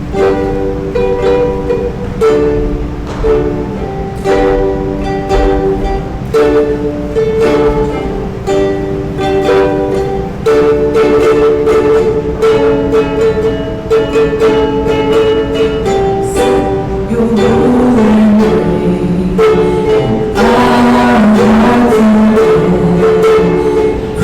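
Ukulele strumming a repeating chord pattern as the intro to a worship song; a lower melody line comes in about two-thirds of the way through and the sound grows fuller near the end.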